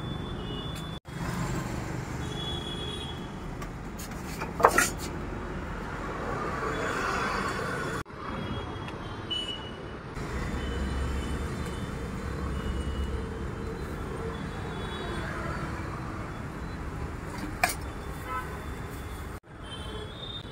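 Street traffic noise, a steady roadside din, with a loud sharp knock about five seconds in and a smaller one near the end; the sound breaks off suddenly for an instant three times.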